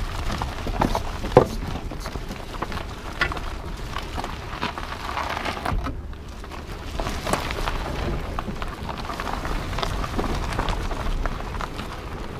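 2009 Nissan Altima Hybrid's tyres crunching slowly over a leaf-strewn gravel track, with many small stone pops and clicks over a steady low rumble. About halfway through, the car slows almost to a stop, then rolls on.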